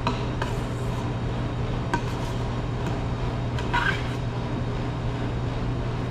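Steady low hum of commercial kitchen equipment, with a few light clinks and taps of utensils, one near the start, one about two seconds in and a ringing one just under four seconds in.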